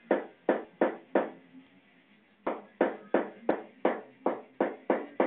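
Hammer driving a nail into a wall: a run of sharp strikes, about three a second, with a pause of about a second after the first four.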